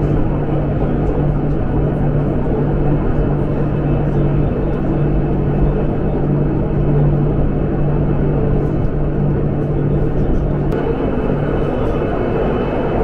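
Electric rack railcar of the Pilatus cogwheel railway climbing, heard from inside the car: a steady rumble of the running gear with a continuous low hum.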